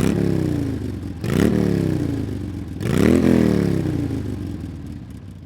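An engine revving three times, each rev climbing quickly in pitch and then sinking slowly. It fades away near the end.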